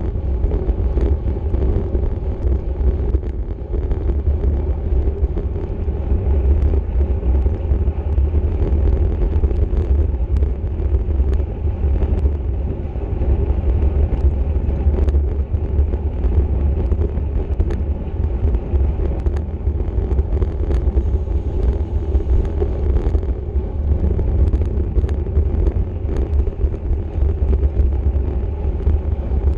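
Steady wind rushing over the microphone of a camera on a road bike at racing speed, over a constant low rumble of tyres on pavement, with scattered faint ticks.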